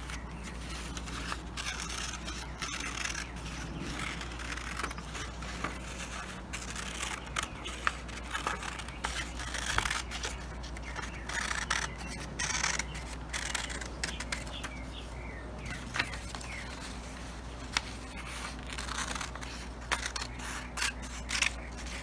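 Scissors cutting through construction paper in many short, irregular snips, over a steady low hum.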